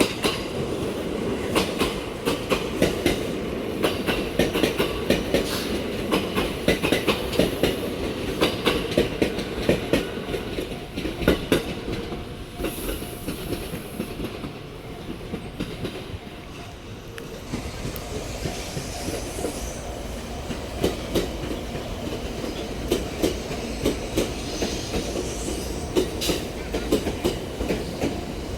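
Train passing close by, its wheels clacking rhythmically over the rail joints over a steady rumble, with a brief lull partway through before the clacking resumes.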